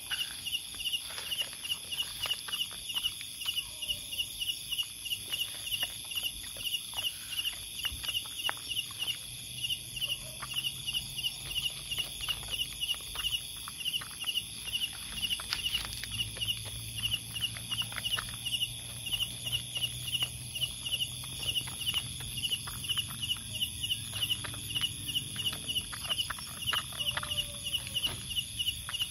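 Night insects: a chirping insect repeating a short high chirp about two to three times a second over a constant high insect drone, with irregular crunching as dogs eat dry kibble from a bowl.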